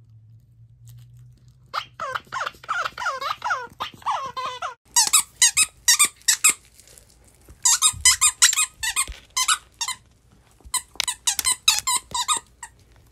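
A dog chewing a plush squeaky toy, working its squeaker in quick runs of squeaks. It starts about two seconds in with a stretch of wavering squeals, then three bursts of rapid, sharp squeaks each lasting a second or two.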